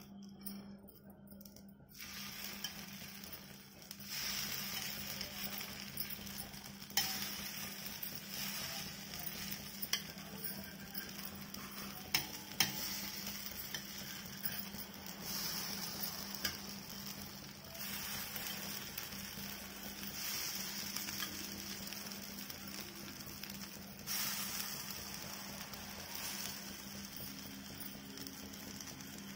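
Batter sizzling in oil as mini dosas fry on a cast-iron tawa, the sizzling picking up about two seconds in. A steel spatula scrapes and clicks against the pan now and then as the dosas are flipped.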